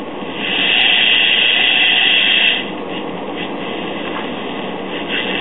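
AM transistor clock radio hissing with static from its speaker as it is tuned across the band between stations. The hiss is louder for the first couple of seconds, then settles lower.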